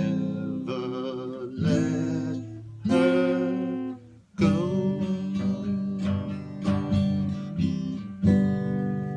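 Acoustic guitar, strummed and picked chords closing the song. There is a brief break about four seconds in, and a final chord near the end is left ringing.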